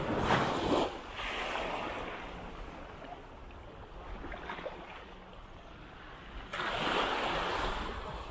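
Small waves breaking and washing up a sandy beach. One swells and fades over the first couple of seconds, and another comes in about six and a half seconds in.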